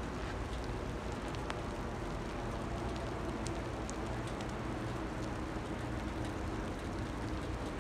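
Steady low diesel drone from a large ship under way, over a constant hiss of wind and water, with a few faint ticks.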